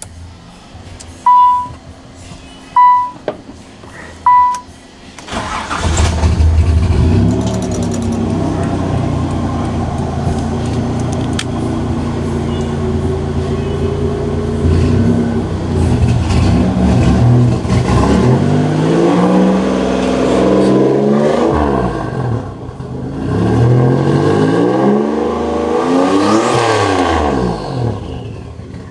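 Three short beeps, then a 1987 Nissan 300ZX's VG30ET turbo V6 starts about five seconds in and idles. In the last ten seconds it is revved up and let fall back several times.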